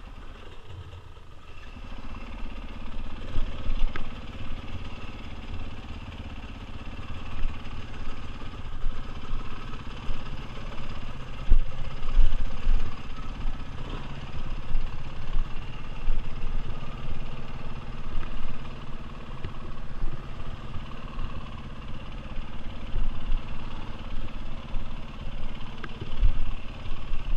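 Dirt bike engine running at low revs while riding slowly over rough ground, with a few sharp knocks along the way.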